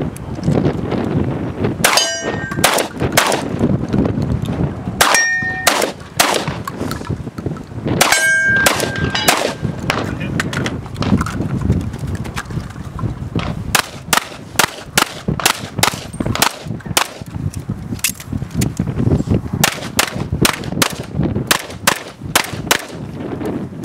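Gunfire on a 3-gun stage: shotgun shots with steel targets ringing after hits, three times in the first ten seconds, then a long string of pistol shots at about two or three a second.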